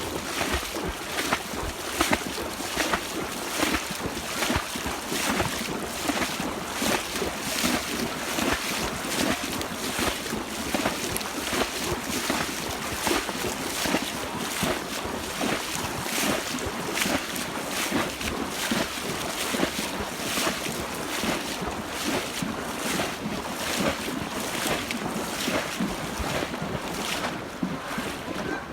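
Steady rhythmic splashing of steps wading through shallow floodwater on a trail, about one to two splashes a second, with some wind noise on the microphone.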